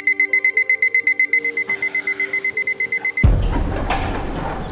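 Digital alarm clock beeping rapidly, about eight beeps a second, over soft music. A little over three seconds in, the beeping cuts off and a loud deep rumble takes over, fading slowly.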